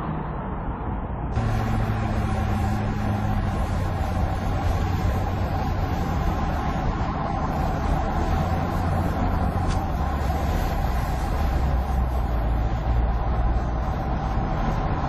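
Car driving at speed on an open road: a steady low engine hum under tyre and wind noise. The sound jumps louder and fuller about a second in.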